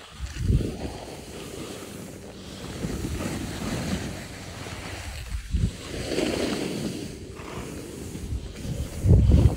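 Wind buffeting the microphone and skis hissing and scraping over snow while skiing downhill, in rushing swells a few seconds apart, the loudest near the end.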